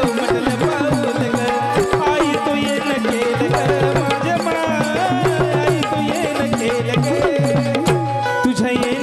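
Marathi devotional gondhal folk song: hand drums keep a steady beat under a melody that bends up and down.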